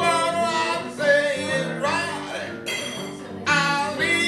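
Blues on acoustic guitar and harmonica: steady guitar chords under sustained, bright harmonica notes, with one note bending about two seconds in and a new harmonica phrase starting near the end.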